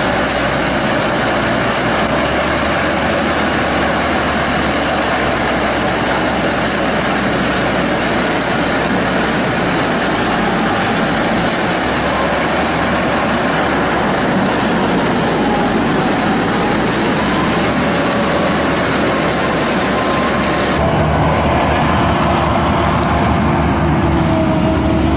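Corn harvester running steadily, its engine and machinery making a dense, even noise with a faintly wavering pitch. The sound changes abruptly a few seconds before the end: the hiss thins and a low engine hum comes forward.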